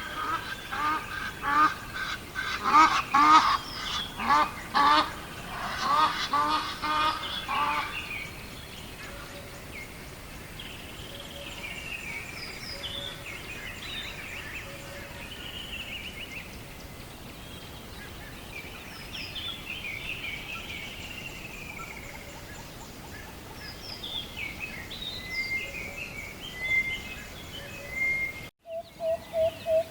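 Birds calling: a flock of loud, rapidly repeated honking calls for about the first eight seconds, then quieter chirps and whistled song phrases, cut off abruptly near the end.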